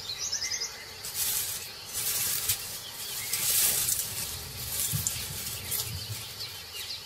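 Dry grass rustling in several soft swells as a tiger pushes through it, with a few faint bird chirps near the start.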